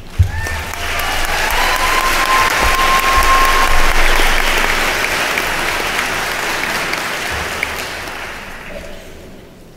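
Audience applause welcoming a speaker, swelling over the first few seconds and then slowly dying away. A held high tone rings over it for a couple of seconds near the start.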